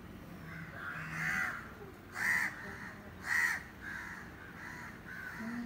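Crows cawing: a run of short, harsh caws, the three loudest about a second apart, with fainter caws between them.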